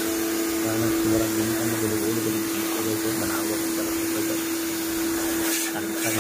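Portable electric pressure washer running with a steady motor hum while its lance sprays a hissing jet of water.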